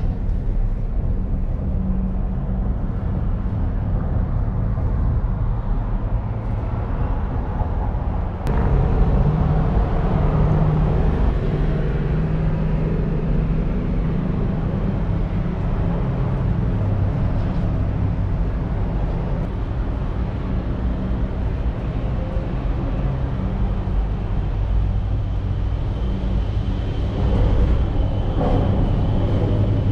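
Ngong Ping 360 cable car gondola running: a steady low rumble and hum, with a sharp click about eight seconds in, after which it is a little louder.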